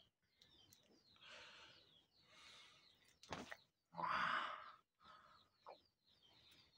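Soft mouth and peeling noises while a ripe mango is eaten by hand, then a sharp click a little after three seconds and a loud, breathy, open-mouthed gasp at about four seconds.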